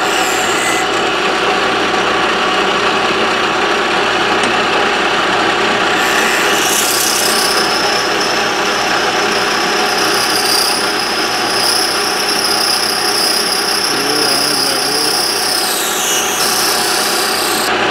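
Milling machine spindle running a four-flute carbide end mill at about 1600 RPM, cutting a slot in a metal bar. A steady high-pitched whine from the cut comes in about seven seconds in and dies away near the end.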